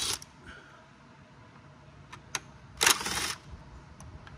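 Ratchet wrench with an 8 mm socket turning a bolt: a single click, then a short, rapid burst of ratchet clicking about three seconds in.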